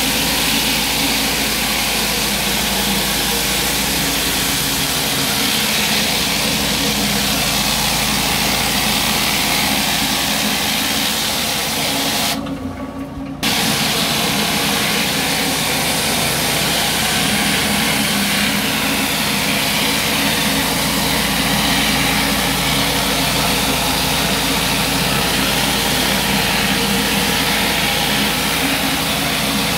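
Pressure washer running steadily while a flat surface cleaner's spinning spray bar hisses water against block paving. About halfway through, the hiss cuts out for about a second, then comes back.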